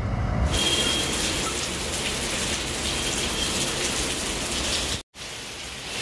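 Heavy rain pouring down steadily, a dense hiss of falling drops. The sound cuts out for an instant about five seconds in and resumes a little quieter.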